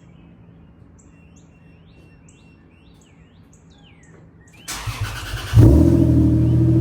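Faint bird chirps for the first four and a half seconds, then the Lexus engine is cranked on the starter for about a second, catches, and settles into a loud, steady idle. This is its first start with the header exhaust leak repaired and new header gaskets in place.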